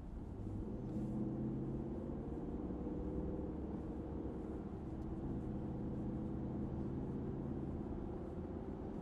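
Stock 2018 Dodge Durango R/T's 5.7-litre HEMI V8 running at low, fairly steady engine speed through the factory exhaust. The note lifts slightly about a second in and then holds.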